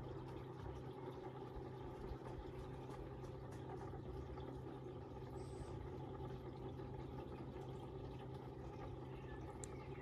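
Koi pond pump and filter running: a steady low hum with a faint wash of moving water.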